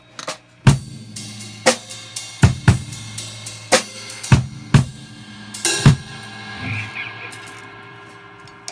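Drum kit played in loose, irregular hits rather than a steady beat, drums and cymbals struck about a dozen times with the cymbals ringing on, over a steady low tone. The hits stop about six seconds in.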